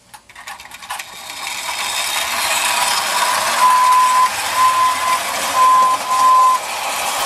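Marx clockwork (wind-up) train released by hand, its spring motor whirring and tin wheels rattling on the track, getting louder as it runs. A few clicks come at the start, and a short high beep repeats four times in the second half.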